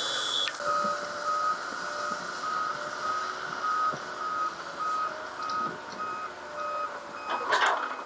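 Backup alarm on heavy earthmoving machinery beeping steadily about twice a second, then stopping near the end, where a brief loud burst of knocks follows.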